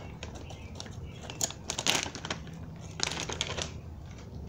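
Plastic shrimp bag crinkling as the shrimp are shaken out into a plastic tub, in a few short crackling bursts about a second and a half in and again at about three seconds.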